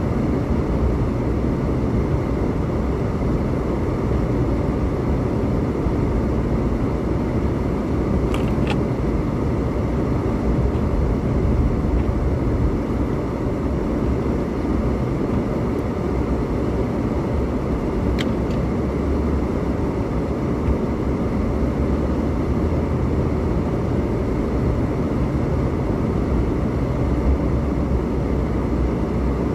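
Steady low road and engine rumble of a car driving slowly along a snow-covered road, heard from inside the cabin. Two or three faint clicks come about eight seconds in and again near eighteen seconds.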